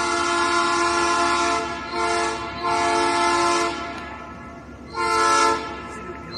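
Diesel locomotive's multi-note air horn sounding a series of blasts: a long one, a short one, another long one, then a short one about five seconds in. Under the horn is a low rumble from the passing work train.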